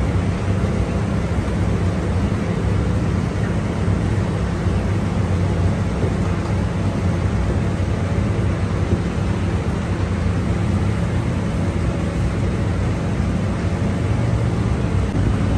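Steady low rumble with a faint hum from bakery machinery, unchanging throughout.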